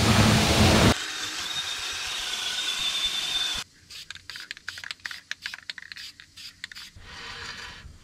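Pressure washer spray hissing hard against a car's wheel well and suspension for about a second, then a quieter spray hiss with a thin steady whine. After that come scattered light scrapes and clicks of hand work on the bare brake hub.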